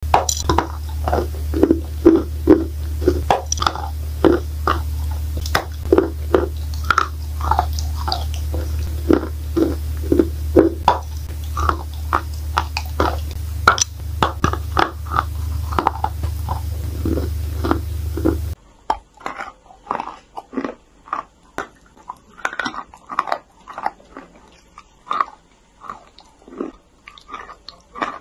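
Close-up crunching and chewing of edible chalk being bitten, a steady string of sharp crunches. A steady low hum runs under the crunching until it cuts off about two-thirds of the way in, and the crunching carries on over a quieter background.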